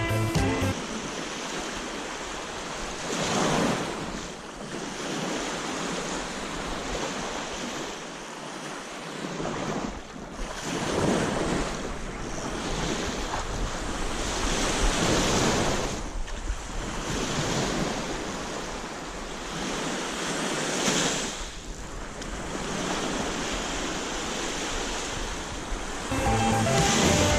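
Waves washing onto a beach, surging and easing every few seconds, with some wind on the microphone.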